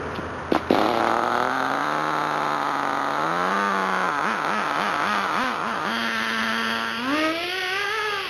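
Ported .18 two-stroke nitro engine of an RC buggy running: two sharp knocks about half a second in, then a buzzing engine note that climbs slowly, warbles up and down with quick throttle blips, holds steady, then rises sharply and falls back near the end.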